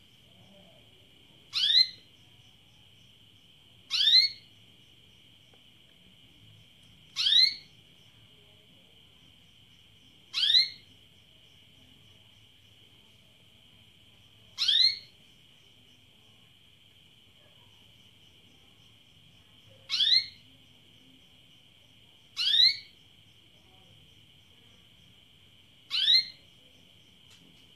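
Female domestic canary giving its mating-solicitation call: a short, sharply rising note, repeated eight times with gaps of about two and a half to five seconds. A steady high-pitched ringing runs underneath.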